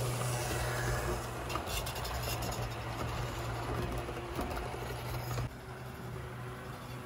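HO-scale Athearn Blue Box F7 model locomotive running along the track hauling double-stack container cars: a steady hum with light clicking and clatter from the wheels on the rails. The sound drops away abruptly about five and a half seconds in.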